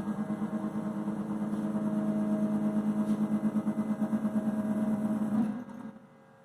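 Lasercomb HSP1613 sample-making and milling table running its reference (homing) travel: a steady machine hum with a fast pulse, cutting off about five and a half seconds in.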